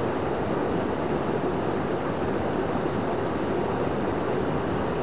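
Mountain torrent's water rushing steadily, an even hiss with no separate splashes.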